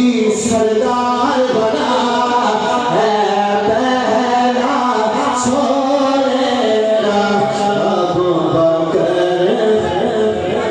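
Devotional singing: a voice holding long notes that waver and glide through a melody, over musical accompaniment.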